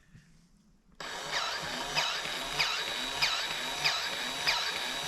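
A small electric power tool starts about a second in and runs steadily, with a falling sweep that repeats about every two-thirds of a second.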